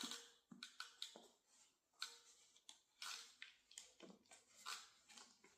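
Faint, irregular rustling and scraping as a bichon mannequin's fur wig and legs are handled and pushed together, in short separate strokes.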